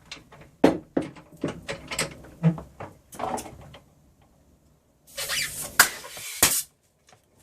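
Clicks and knocks of a golf club being handled in a bench clamp, then a compressed-air gun hissing into the rubber grip for about a second and a half, ending in a sharp bang as the grip bursts.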